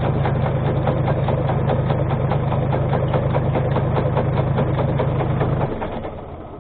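Tractor engine running at raised revs under hydraulic load as the tree shaker's clamp is tightened on a walnut trunk: a steady low hum with a fine rattle over it, easing back about five and a half seconds in once the clamp is tight.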